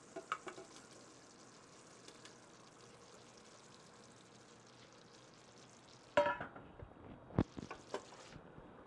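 Faint steady sizzle of roux and vegetables in a stainless stockpot, with a few soft clatters near the start as pieces of vegan chicken and sausage drop in from a metal bowl. About six seconds in, a wooden spoon starts stirring, knocking and scraping against the pot; these knocks are the loudest sounds.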